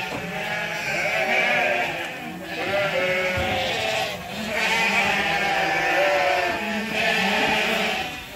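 A flock of ewes bleating loudly, many overlapping calls without a break. This is the excited noise sheep make when they are about to be fed grain corn.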